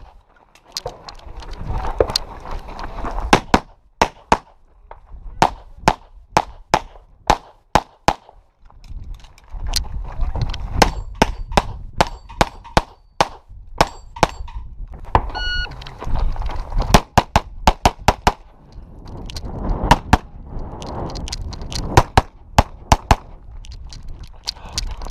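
Handgun fired in rapid strings during a practical pistol stage, the shots coming in quick clusters with brief lulls between them. A short ringing tone sounds about two-thirds of the way through.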